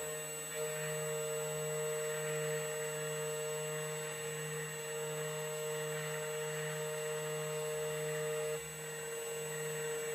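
2M2 Tank CNC key cutting machine running, a steady hum and whir from its spindle motor as it mills a key blank. A higher tone in it drops out near the end.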